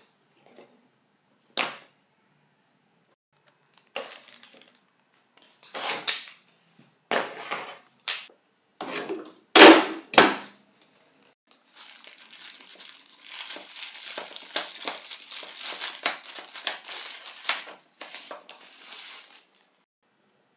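Hard plastic tool-housing shells clacking and knocking as they are handled, then two loud thumps as they are dropped into a plastic waste bin. After that come about eight seconds of dense crinkling and crackling from plastic packaging being opened.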